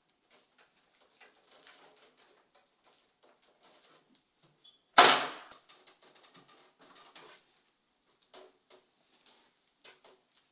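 Scattered small clicks and rustles of handling, with one loud, sharp knock about halfway through that dies away over about half a second.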